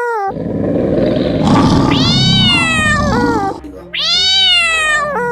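Cat meowing: two long, drawn-out meows, each rising and then falling in pitch, the first over a steady background noise.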